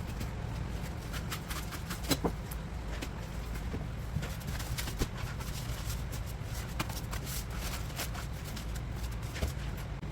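Knife clicking and scraping against a cutting board as a sea bass is cut up, in short irregular taps over a steady low hum.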